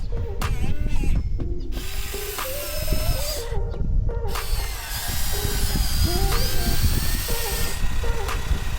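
Whirring of a hydraulic RC excavator's small electric pump motor and gears under load, its pitch stepping up and down as the machine works.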